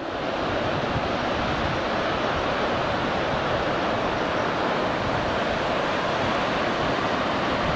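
Steady rush of sea surf and wind.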